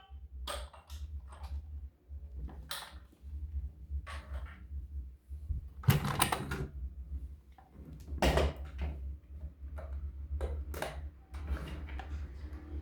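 Irregular clicks, taps and rustles of toys and their packaging being handled, over a steady low hum; the loudest knocks come about six and eight seconds in.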